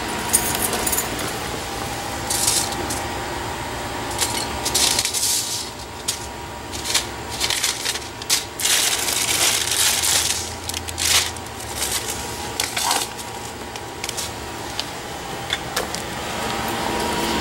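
Pepper and tomato plant leaves rustling in irregular short bursts as hands push through the foliage, over a faint steady hum.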